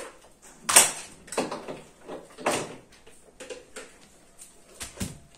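A power plug and its cable being handled and pushed into a wall-mounted extension board: a series of sharp clicks, knocks and scrapes, the loudest about a second in.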